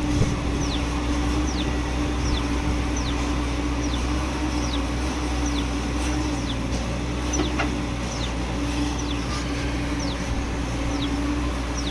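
Excavator's diesel engine running steadily with a constant low hum, while a bird chirps over it again and again with short, high notes that fall in pitch.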